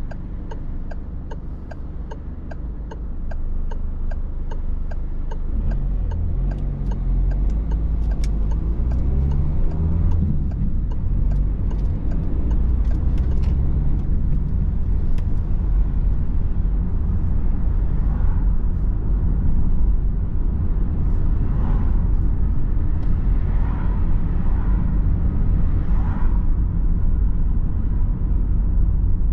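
Inside a car cabin: the turn-signal indicator ticks steadily while the car stands in a queue. The low engine and tyre rumble grows louder as the car pulls away, and the ticking fades out about halfway through.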